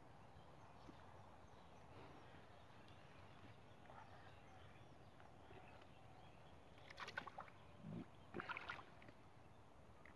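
Hands working in a waterlogged mud hole: faint wet squelching and small splashes of mud and water, with two short clusters of sharper slaps and sloshes about seven and eight to nine seconds in. Otherwise near silence.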